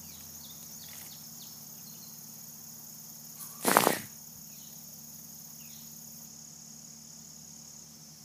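A short, loud blast of spray from a garden hose nozzle hitting the camera, about three and a half seconds in, over a steady, faint high-pitched chorus of insects.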